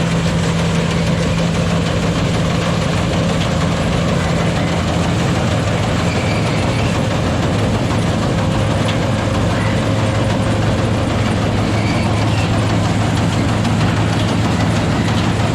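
Small Sampo plot combine harvester running steadily at close range, its engine giving a constant hum.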